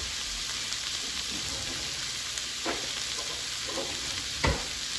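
Beef strips sizzling steadily in an electric skillet, with a single sharp knock about four and a half seconds in.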